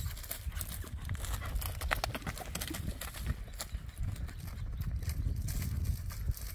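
Hoofbeats of a dun horse galloping under a rider over dry dirt: a fast, irregular drumming of hooves.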